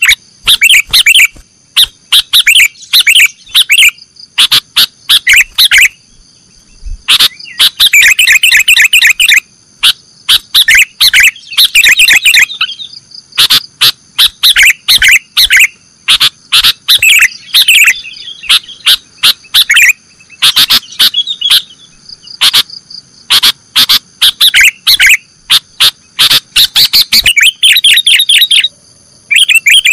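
Sooty-headed bulbul (kutilang) singing loud, rapid runs of chirping notes in the 'nggaruda' song style. The runs come in bursts of a second or two, separated by short pauses, over a faint steady high whine.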